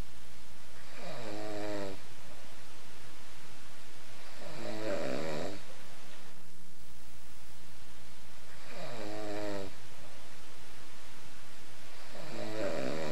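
Snoring: four drawn-out, rasping snores, one about every three to four seconds, over a steady background hiss and low hum.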